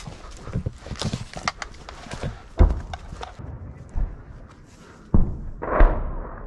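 Footsteps in dry leaf litter and rustling brush, with heavy thumps and knocks close to a helmet-mounted camera's microphone. The rustling stops about halfway through, and the loudest knocks come near the end.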